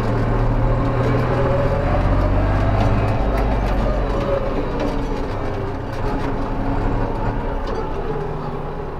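Ursus 3502 tractor's diesel engine running steadily under load while it drives a Ditta mower chopping pruned orchard branches, with scattered light clicks over the engine hum.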